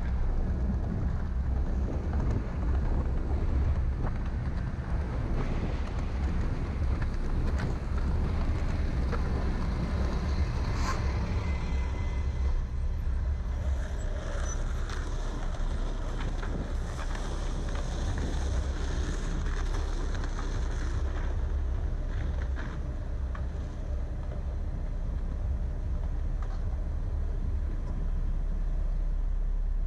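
A steady low rumble of a car and wind on the microphone, with city traffic around it. A city bus passing close alongside adds more noise in the middle.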